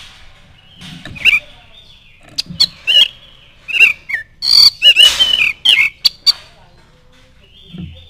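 Caged oriental magpie-robin (kacer) singing at close range: a run of loud, sharp whistled notes that bend up and down, mixed with clicks, starting about a second in and stopping about six and a half seconds in.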